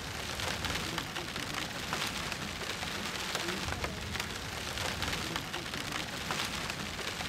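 Rain pouring steadily in a rainstorm, with many small raindrop hits close by.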